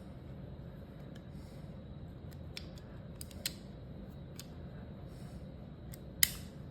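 Small metal clicks and taps from handling revolver parts during reassembly: a handful of light, scattered clicks, then one louder, sharper click near the end.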